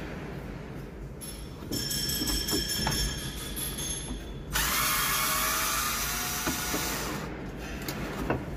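Cordless drill-driver running in two spells, the first about three seconds long, the second louder, about two and a half seconds long with its pitch sliding, while driving the screws of a tractor's dashboard instrument-cluster panel; a few small knocks between.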